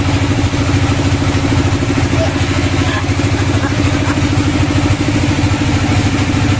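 Bandsaw mill's engine running steadily at idle, a low even drone with a fast pulsing beat.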